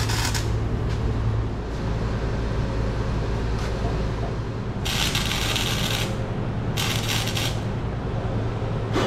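Arc welder crackling in bursts as a seat-mount bracket is welded: one about five seconds in lasting about a second, a shorter one a couple of seconds later, and a brief one near the end, over a steady low hum.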